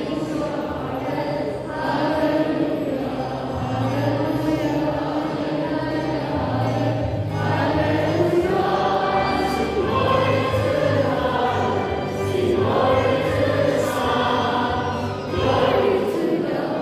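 Church choir singing a hymn in long held phrases, with short breaths between phrases.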